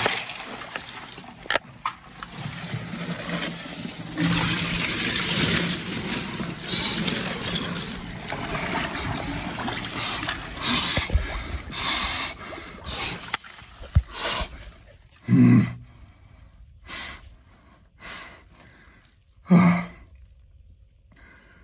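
Ice water and ice cubes sloshing as a man lowers himself into an ice bath. Then comes a series of short, forceful breaths through pursed lips, a second or so apart, a couple of them with a low voiced groan: his breathing against the cold shock.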